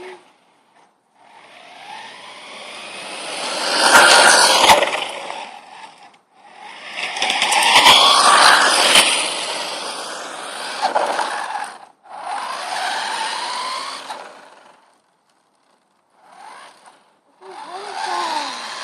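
Battery-powered RC car driving fast in several runs, its motor whine and tyres scraping and skidding on the ground, swelling loudest about four and eight seconds in. Each run cuts off abruptly.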